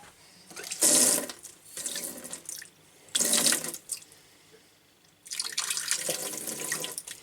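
Tap with a newly fitted insert turned on and off several times, water gushing into the sink in four bursts, the last about two seconds long; the repaired tap now flows properly.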